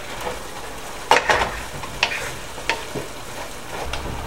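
Chopped onions sizzling in butter in a nonstick frying pan, turning translucent, with a steady hiss. A wooden spoon stirs and knocks against the pan about six times, the loudest knock about a second in.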